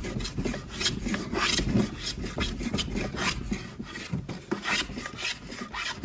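Hand plane shaving the edge of a wooden casement sash in short, quick strokes, about three a second. The sash is being trimmed where it still sticks in its opening.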